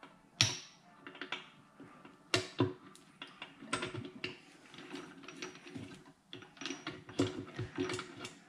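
Gear shafts and gears of a Ducati Monster 659 gearbox clicking and clinking as they are moved and turned by hand in the open crankcase half. Irregular clicks and knocks with a few sharper ones. The shafts do not feel right to the mechanic, who is checking them.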